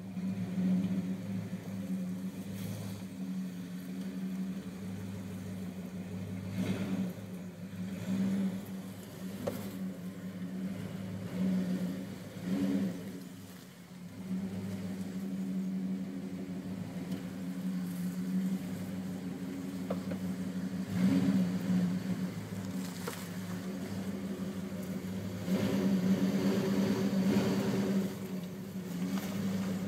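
1994 Jeep Grand Cherokee's engine running at low revs as it crawls over rocks, with a few short knocks along the way. It gets louder in spells about two-thirds of the way in and near the end as the throttle opens on the climb.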